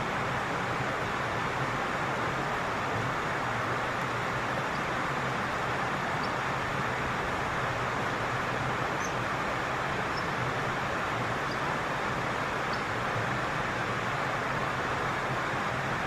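Steady rush of flowing stream water, even and unbroken, with a few faint, short high chirps here and there.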